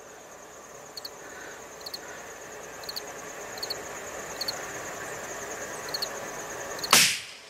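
Insects chirping about once a second over a steady high buzz, then a single loud rifle shot about seven seconds in.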